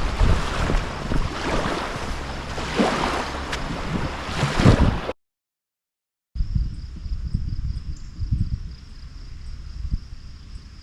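Wind buffeting an action camera's microphone, a loud rushing noise with heavy low rumble. It cuts off about five seconds in to a second of dead silence. Then a steady high insect trill, like crickets, plays under softer wind thumps on the microphone.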